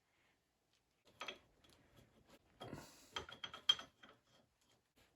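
A few light metallic clicks and clinks, steel parts being handled on a lathe, with a cluster of sharper ringing clinks a little past the middle.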